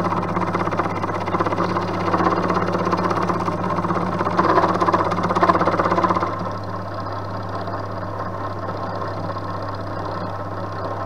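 Milling machine taking a radial cut in metal with a flat-bottomed endmill: a steady motor hum under the dense rasp of the cutter. About six seconds in the cutting noise drops away, leaving the machine running more quietly.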